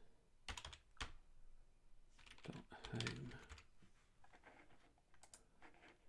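Faint, irregular keystrokes on a computer keyboard, a few key presses at a time, as text is typed in.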